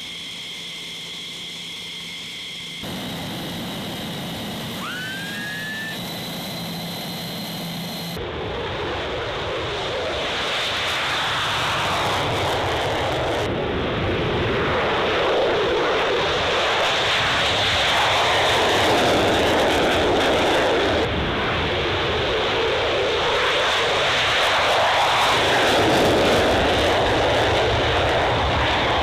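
F-15E Strike Eagle jet engines: a steady high whine at first, with a brief rising whine a few seconds in, then from about eight seconds in the loud roar of an afterburner takeoff, building and sweeping up and down as the jet runs down the runway and climbs away.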